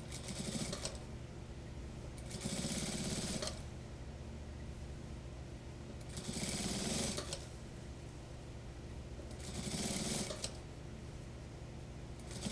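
Industrial lockstitch sewing machine stitching through suit fabric in short runs of about a second, four times, with pauses between, and a fifth run starting at the very end, over the machine's steady low hum.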